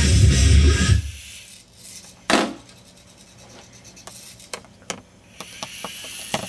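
Small tracked rover robot's drive motors and tracks running on carpet, cutting off about a second in. Then a sharp click and scattered small clicks and rubbing as the robot sits in the corner and scans, with its motors starting again faintly near the end as it turns.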